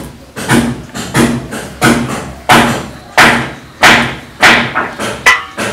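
Steady hammering on corrugated tin roofing sheets, about one blow every two-thirds of a second, each blow ringing briefly. The hammering comes from a tin roof being fixed on during house construction.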